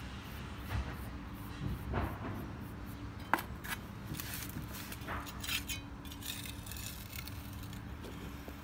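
A small hand tool scraping and clinking against a cast stone repair patch as it is shaped, in scattered strokes with a sharp click about three seconds in and a denser run of scraping soon after. A steady low hum sits underneath.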